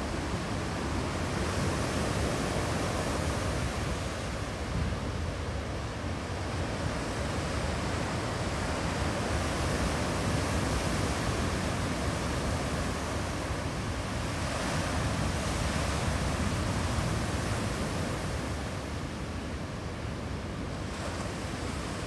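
Ocean surf breaking and washing up a rocky shore in a continuous rush of water, swelling and easing as successive waves come in, and dropping off a little near the end.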